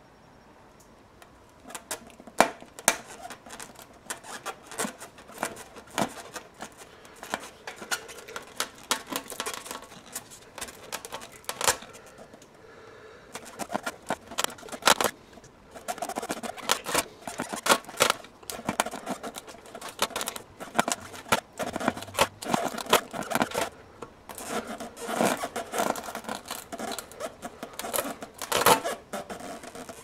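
Spiral rasp tool being twisted and worked in and out of a puncture in a car tyre's tread, reaming the hole for a plug: irregular scraping of metal against rubber with sharp clicks, with a short pause about twelve seconds in.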